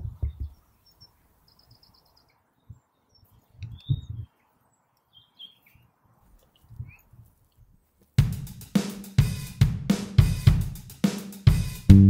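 Drum kit music starts about eight seconds in with cymbal crashes and steady drum hits, a few strikes a second, opening a rock-style music track. Before it there are only a few faint low rumbles and faint bird chirps.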